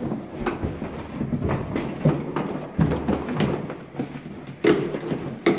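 Cardboard box flaps pulled open and a boxful of plastic toys rattled and knocked about by hands rummaging through it: a run of irregular clicks and clatters.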